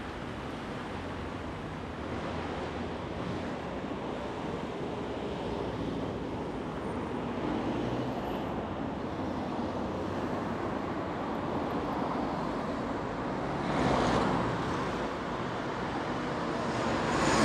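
Steady rush of city road traffic, with a brief louder swell about fourteen seconds in.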